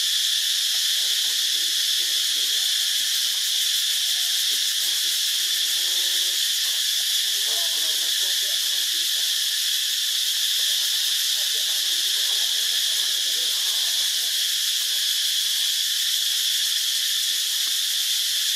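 A steady, high-pitched drone of an insect chorus.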